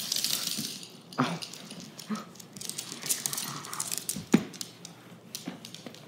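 Small curly-coated dog scrambling about on a hardwood floor: quick scrabbling and clicking, with a few sharp knocks, the loudest about four seconds in.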